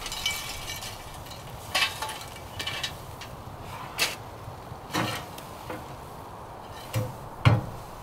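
Irregular clinks and knocks of cookware and utensils being handled during cooking, several with a brief metallic ring; the loudest, a dull knock, comes near the end.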